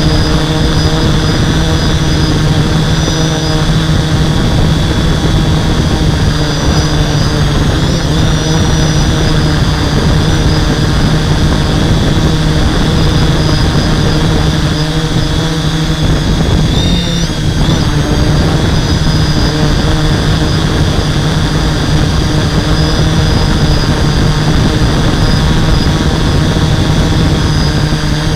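A hexacopter's six brushless motors and 11x5.5 propellers running in flight, a loud steady hum with a high whine above it, heard from a camera mounted on the craft. About 17 seconds in, the whine briefly wavers as the motor speeds shift.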